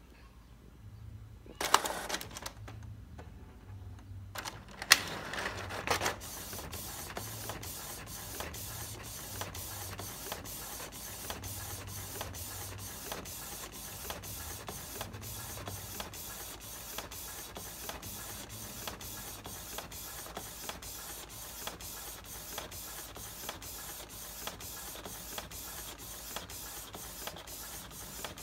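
Inkjet printer printing. A few loud mechanical clunks come in the first six seconds, then the print-head carriage shuttles back and forth with a steady whir and an even run of ticks, about two to three a second.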